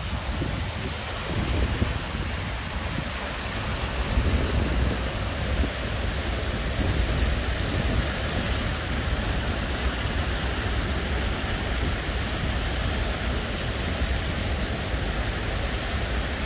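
Water pouring over a small concrete weir into the pool below: a steady rushing. A low rumble of wind on the microphone runs underneath.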